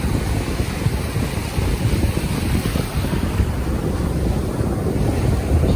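Wind blowing on the microphone over surf breaking on a beach, a steady noise heaviest at the low end.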